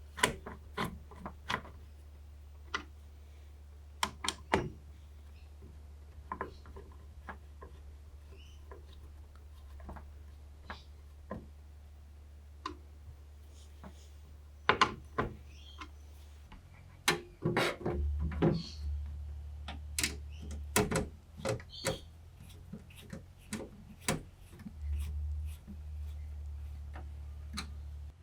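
Hands handling PC components during assembly: scattered clicks, taps and light knocks, sparse at first and much busier in the second half, over a low steady hum.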